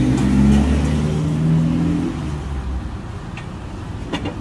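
A motor vehicle's engine running close by, loud for about two and a half seconds and then dying away. A couple of sharp clicks near the end.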